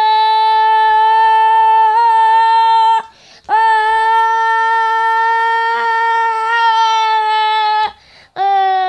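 A young voice shouting a long drawn-out "Gooool" goal cry, held on one steady high note for about four seconds, then after a quick breath for another four seconds or so, then a shorter cry that falls in pitch near the end.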